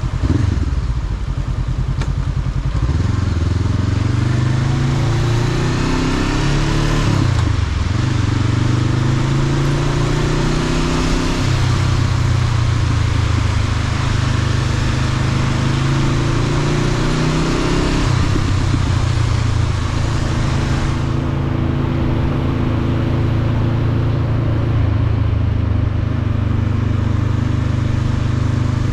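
Motorcycle engine running under way, its pitch climbing and dropping back several times as it accelerates through the gears, then holding steady. A high hiss runs with it and fades about twenty seconds in.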